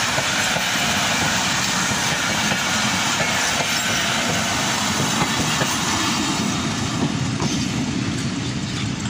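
Passenger train coaches rolling past at close range: a loud, steady rush of wheel and track noise with scattered clicks as the wheels pass rail joints. It eases slightly near the end as the last coach moves away.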